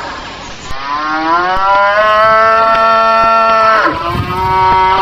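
A cow mooing: one long moo of about three seconds that drops in pitch as it ends, then another moo starting near the end.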